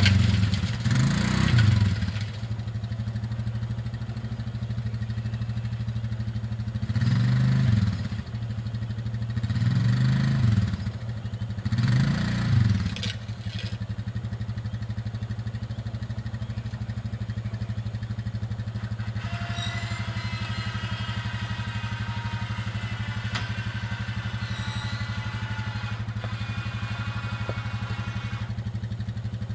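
Small vehicle engine pulling a disc harrow through garden soil, rising and falling in pitch four times in the first half as the throttle is opened and eased off, then running steadily.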